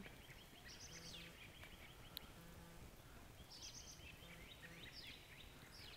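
Near silence with faint, high bird chirps, a short run about a second in and another around three and a half seconds in.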